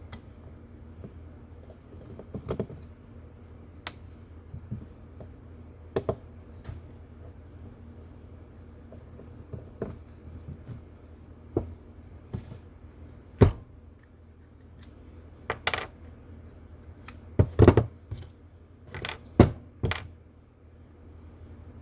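Small metal carburetor parts and tools clicking and clattering on a bench as a John Deere GX85 carburetor is taken apart by hand: scattered light clicks, with a few louder knocks in the second half.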